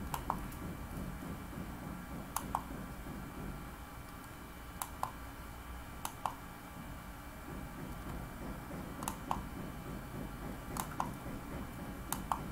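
A computer mouse clicking now and then, about seven times, some as quick double clicks, over a low steady background hum.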